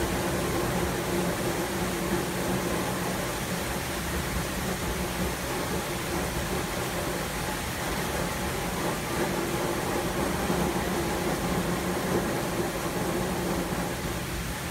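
Steady hiss of rain in a night thunderstorm, with a low even hum underneath and no thunderclap.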